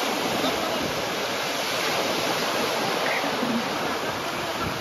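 Small sea waves breaking and washing in the shallows, a steady rushing surf.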